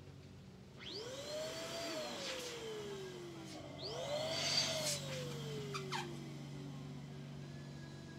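A small electric motor spins up and winds down twice, about three seconds apart. Each time the pitch rises quickly, then falls slowly as it coasts to a stop, with a rush of air at the louder second run.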